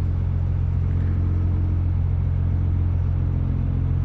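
An engine idling with a steady low drone.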